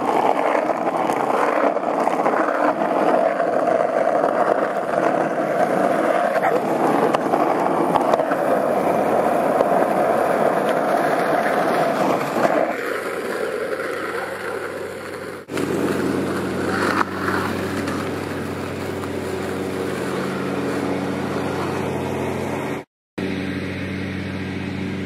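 Skateboard wheels rolling fast on rough asphalt down a hill: a dense, steady rumble. About halfway through, the sound cuts to a quieter steady hum with several even tones, briefly dropping out near the end.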